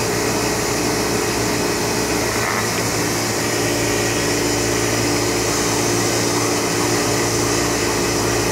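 Steady machine hum and whir of an Oxford Plasmalab 133 ICP plasma etch system running with its plasma lit, with several steady low tones under an even hiss.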